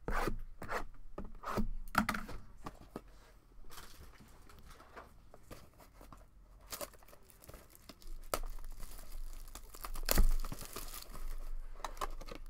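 Plastic wrapping on sealed trading cards being torn open and crinkled: a run of short rips and rustles, the loudest about ten seconds in.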